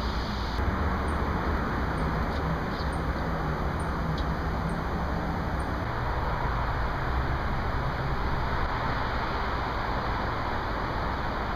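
Steady outdoor rumble of road traffic. For the first several seconds a short, high chirp repeats about once a second.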